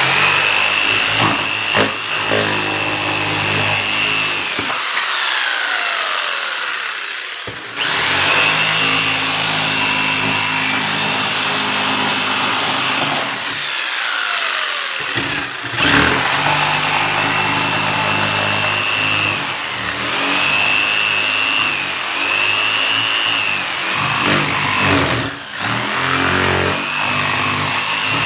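Corded jigsaw cutting plywood: a high motor whine over the blade's chattering strokes through the wood. Three times the trigger is let go and the whine falls away as the motor winds down, then the saw is started again.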